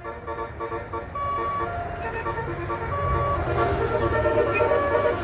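A bus's Basuri telolet horn, a multi-tone musical horn, playing a quick melody of short notes. Underneath it the bus's engine rumbles, growing louder about three seconds in.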